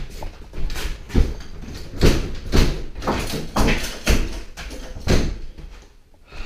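An old wooden door being yanked and shaken hard in its frame by someone trying to force it open. It gives a series of loud knocks and thumps, roughly every half second at first, that die away about five seconds in.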